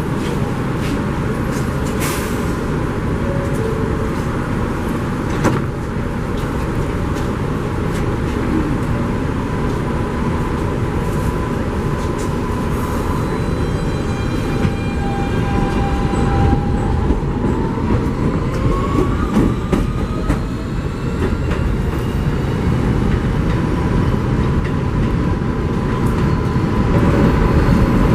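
New York City subway train running through an elevated station, with a steady rumble and a motor whine that rises in pitch about two-thirds of the way through as the train picks up speed.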